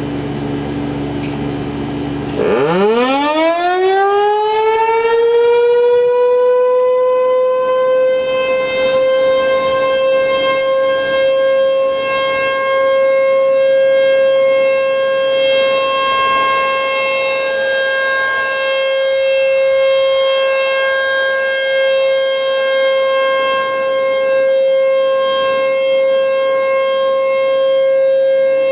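American Signal T-128 outdoor warning siren starting up about two and a half seconds in. It winds up quickly from a low growl to a steady single tone, which swells and fades slowly as the rotating head turns.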